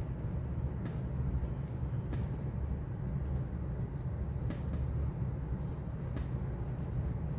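Steady low rumble of background noise, with about half a dozen short, sharp clicks scattered through it.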